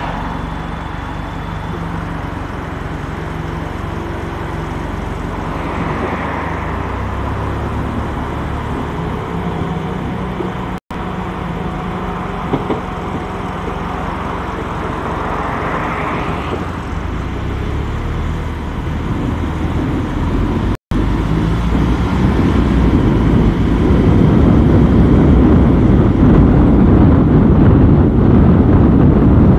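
City road traffic noise from a car driving in traffic: a steady engine-and-tyre rumble, with vehicles swelling past twice. The sound cuts out for an instant twice and grows louder over the last few seconds.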